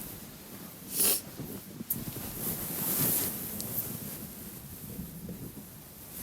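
A tearful woman sniffling and blowing her nose into a tissue: a sharp sniff about a second in, then a longer blow around three seconds.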